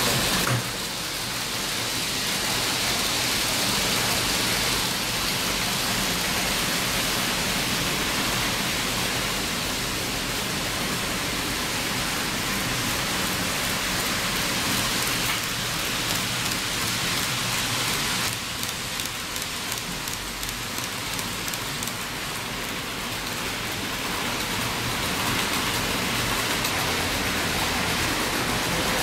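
Model trains running around a layout: a steady rushing hiss of small wheels on track and tiny motors. The hiss shifts in level a few times, about half a second, fifteen and eighteen seconds in.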